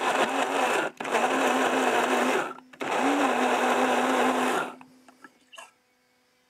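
Electric mini chopper pureeing mango flesh, run in pulses with short breaks; the motor hum dies away about five seconds in.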